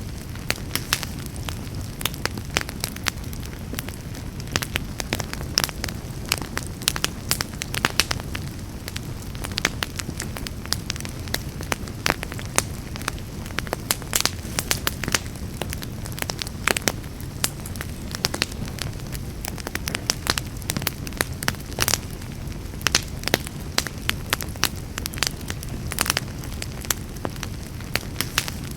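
Wood fire burning in a fireplace: a steady low rumble under constant irregular crackles and sharp pops.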